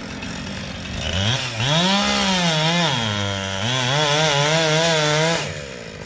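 Two-stroke chainsaw revved up to high speed about a second in, its pitch wavering and dipping once in the middle before climbing again, then falling back to idle near the end.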